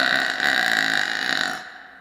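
A woman's long, drawn-out burp that holds a fairly steady pitch and fades out near the end.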